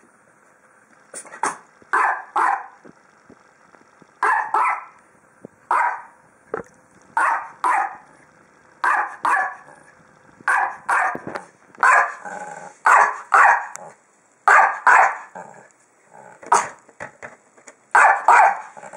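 Small dog barking repeatedly, about twenty short barks that often come in quick pairs a second or so apart. It is barking up at a food-dispensing ball that sits out of its reach: demand barking for the treat.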